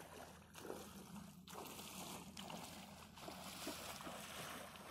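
Shallow lake water lapping and sloshing at the shore, with a steady hiss that grows a little louder about a second and a half in.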